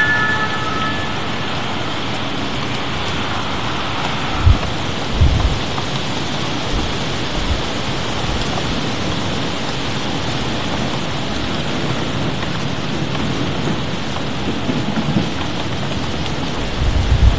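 Steady heavy rain of a summer thunderstorm, an even hiss throughout, with a few short low thumps about four and five seconds in and again near the end.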